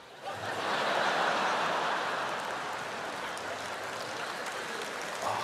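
Studio audience laughing and applauding, swelling up about half a second in and slowly dying away.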